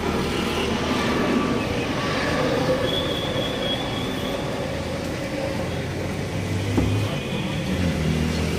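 Street traffic noise: a steady low engine rumble with passing-vehicle noise.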